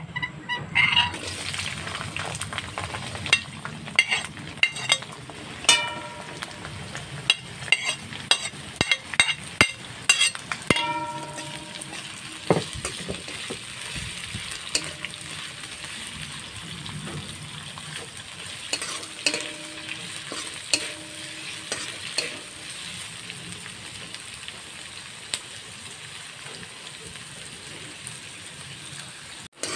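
Sliced onions and green chillies sizzling in hot oil in a metal kadai, stirred with a steel ladle that clinks and rings against the pan. The ladle strikes come thick and fast for the first dozen seconds, then the frying settles into a mostly steady sizzle with occasional scrapes.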